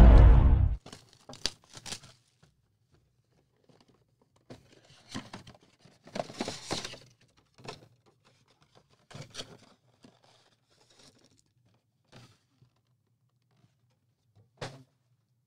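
Loud music cuts off about a second in. Then come short, scattered bursts of tearing and crinkling as trading-card pack wrappers are ripped open and handled, loudest about six to seven seconds in.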